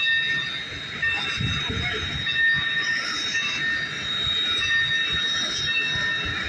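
Railroad car wheels squealing on the rails as the train rolls, a steady high squeal with shorter squeals coming and going over a low rolling rumble.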